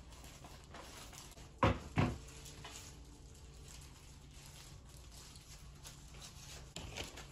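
Two sharp snaps about a third of a second apart as black disposable gloves are pulled on and snapped at the wrist, with faint handling noise over a low steady hum.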